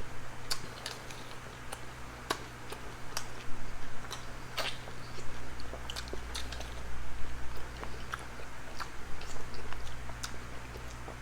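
Close-miked eating: chewing and biting food, with irregular sharp wet clicks and smacks, over a low steady hum.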